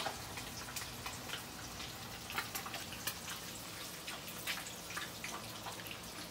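Hot cooking oil in a wok sizzling as food fries, a steady hiss broken by many irregular crackles and pops.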